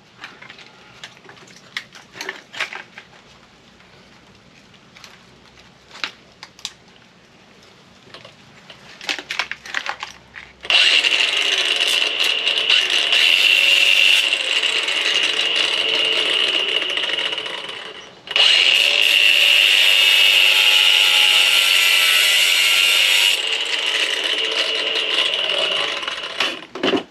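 A few light clicks and knocks of parts being handled, then a handheld power tool runs loud and steady, cutting into microwave scrap for about seven seconds. It stops briefly and runs again for about eight seconds.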